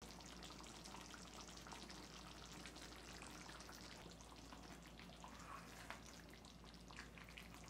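Faint sizzling of oil frying in a pan: a steady hiss thick with tiny crackles, over a low hum.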